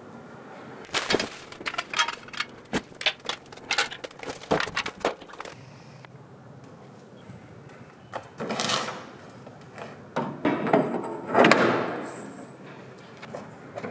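Galvanised steel soft-top frame tubes and hoops knocking and clinking, in a quick run of sharp knocks over the first few seconds. Longer rubbing, scraping sounds follow later.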